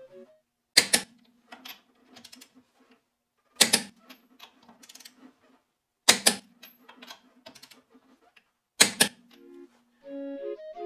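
Four sharp metallic clicks, roughly every two and a half to three seconds, each with a short ring and a few lighter ticks after it: a wrench on the wheel's lug nuts, typical of a torque wrench clicking off as each nut reaches torque.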